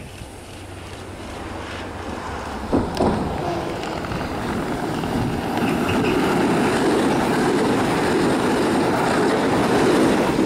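Alstom X'Trapolis Modular electric multiple unit approaching and passing close by: the run of its wheels on the rails grows steadily louder and is loudest as it goes past near the end. Two sharp clicks come a little under three seconds in.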